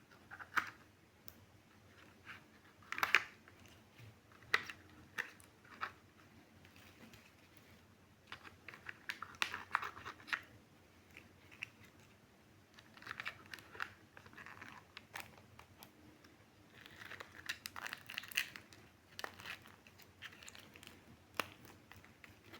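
Packaging being handled and opened by hand: irregular crinkling, tearing and sharp clicks in clusters, with short quiet gaps between.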